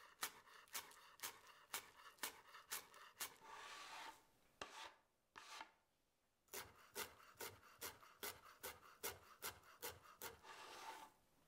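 Chef's knife chopping fresh chives, then dill, on a wooden cutting board: a run of sharp knocks about two a second, each followed by a short scrape. After a pause the chopping starts again, a little faster, with another scrape near the end.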